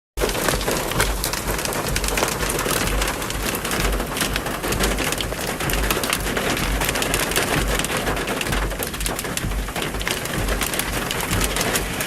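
Heavy rain falling, a dense steady hiss full of fine spattering drops, with wind buffeting the microphone in low, uneven rumbles.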